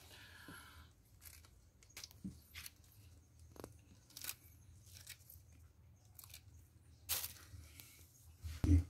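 Soft, scattered crackles and snaps of oyster mushroom clusters being handled and dropped into a plastic mesh crate, with a sharper snap about seven seconds in and a low thump near the end.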